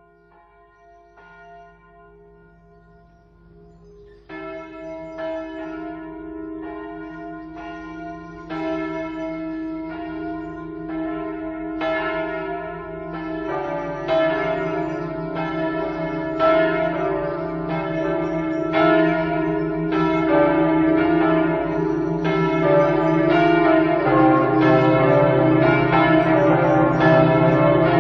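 Church bells ringing: faint at first, then from about four seconds in a run of repeated strikes that grows steadily louder as more bells join.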